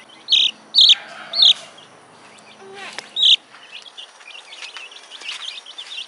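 Chicks peeping: four loud, high peeps in the first few seconds, then a busy stream of soft cheeping from a brood of chicks around a hen.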